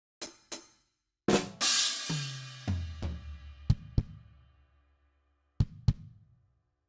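Drum kit playing a short phrase: two quick hits, then a cymbal crash about a second in that rings on while tom hits step down in pitch, followed by two pairs of sharp kick and snare hits.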